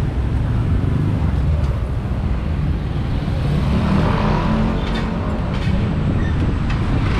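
Steady ride noise from aboard an open electric bike on a city street: a continuous low rumble of road, wind and surrounding traffic. The traffic sound swells a little about halfway through as vehicles pass close by.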